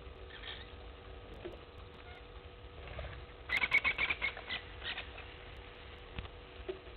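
A bird's quick chattering burst of clicks, about a second and a half long, in the middle of a quiet outdoor background.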